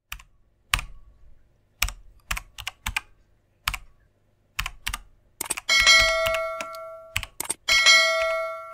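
Keyboard typing sound effect: a dozen or so separate key clicks at an uneven pace, followed by two bright bell chimes about two seconds apart, each ringing on and fading out.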